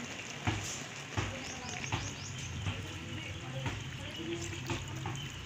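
Coconut milk poured from a plastic measuring cup into a wok of simmering stingray stew, over the steady bubbling of the hot pan, with a few soft knocks.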